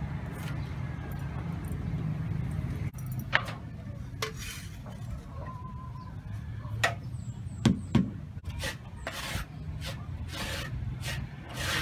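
Hand tool scraping and rubbing on aerated concrete (AAC) blocks in several short strokes, with a few sharp knocks, two of them in quick succession about eight seconds in, over a steady low rumble.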